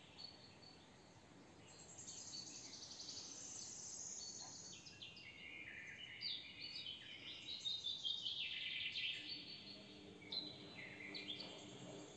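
Faint birdsong: a small bird sings high, trilled chirping phrases, some falling in pitch, with short pauses between them.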